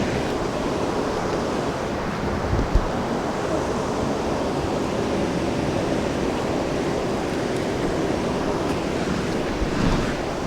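Steady rush of flowing creek water, with wind buffeting the microphone in uneven low rumbles.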